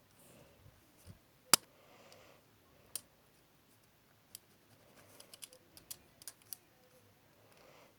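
Sharp clicks of an erasable ballpoint pen and the light scratching of its tip on paper. One loud click comes about a second and a half in, and a quick run of clicks follows in the second half.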